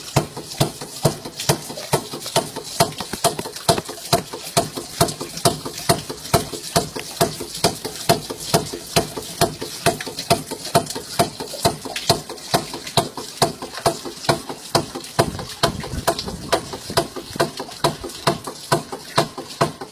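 Home-built valve-and-chain pump mechanism over a water barrel clacking in a steady rhythm, about two sharp clacks a second, with water trickling into the barrel.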